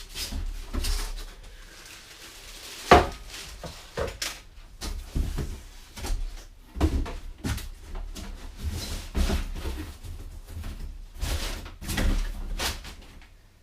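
Cardboard packaging and model-kit parts being handled: a string of irregular knocks, clicks and rustles, with one sharp knock about three seconds in.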